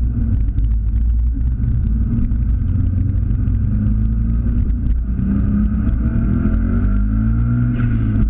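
Subaru Impreza WRX STI's turbocharged flat-four engine heard from inside the cabin, running under load and then climbing in pitch as it revs up in the second half.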